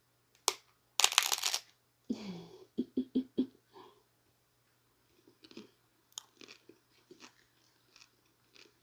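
Biting into a chicken taco: one loud bite about a second in, a quick run of chews a couple of seconds later, then quieter chewing.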